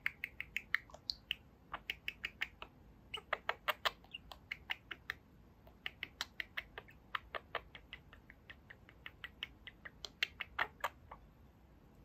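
Budgerigar chattering: irregular runs of quick clicks mixed with a few short chirps.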